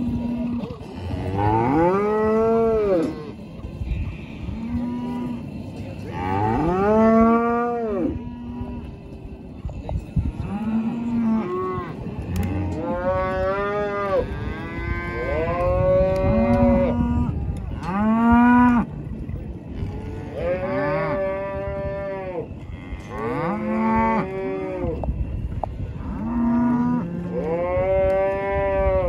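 Cattle bawling over and over: about ten long calls that rise and fall in pitch, some overlapping, with lower, flatter moos between them.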